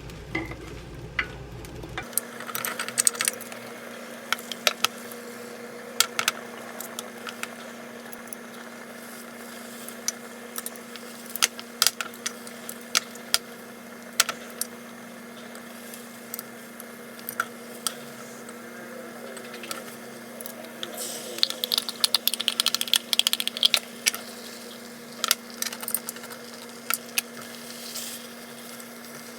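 Kitchen utensils clinking and tapping against cookware in short, irregular knocks, with a quick run of clatter about two thirds of the way through, over a steady low hum.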